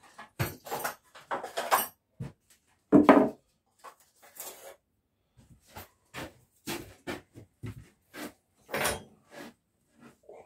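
Hammer tapping small nails to tack a thin metal stop-bead strip onto the inside of a cedar box, mixed with the clatter of tools being picked up and set down on the bench. Irregular separate knocks, the loudest about three seconds in.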